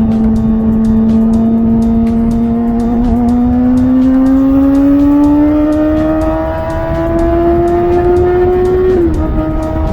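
Kawasaki ZX-6R's inline-four engine running at high revs. Its pitch climbs slowly and steadily for about nine seconds, then drops a little near the end.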